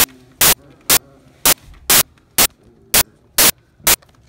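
Loud, sharp clicks repeating evenly about twice a second, nine in all, with only a faint background between them.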